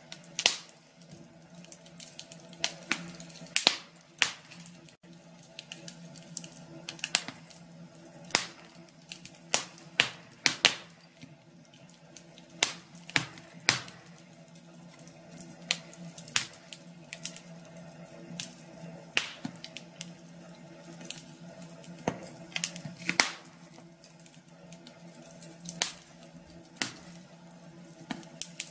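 Fireplace fire crackling, with irregular sharp pops and snaps, several close together at times, over a low steady hum.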